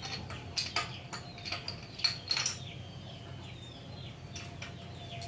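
Light metallic clinks and taps of a long spark plug wrench and the loosened spark plug being worked out of the plug well of a motorcycle's cylinder head. There is a quick flurry of clinks in the first two and a half seconds, then a few fainter clicks near the end.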